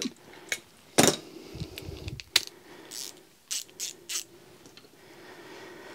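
Steel sockets and a ratchet being handled: a socket pulled off a socket rail and pushed onto a ratchet's square drive, giving a few scattered metal clicks and clinks. The loudest click comes about a second in, and a quick run of smaller clicks follows a little after the middle.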